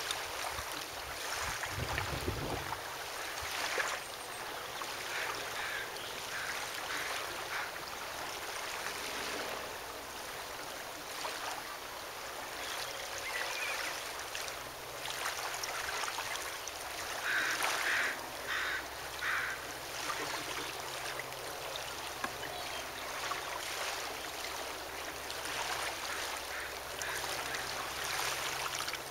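Waterfront ambience: a steady wash of water and wind noise over a faint low hum, with a low rumble a couple of seconds in and a few short, brighter sounds about two-thirds of the way through.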